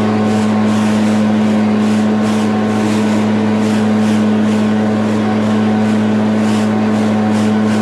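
Small petrol engine of a grass-cutting machine running steadily at constant speed, with a faint high hiss pulsing about twice a second over it.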